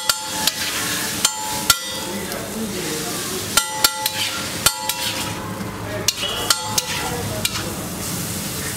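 Metal spatula clanking against a flat steel griddle (tawa) at an irregular pace as it chops and stirs an egg-and-green-masala mixture, each strike ringing briefly, over steady sizzling.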